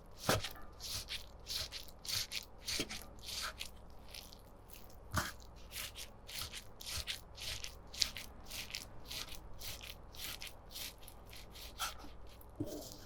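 Hands working raw chicken for nuggets: a quick, fairly even run of rubbing, squishing strokes, about two or three a second, with a few soft knocks.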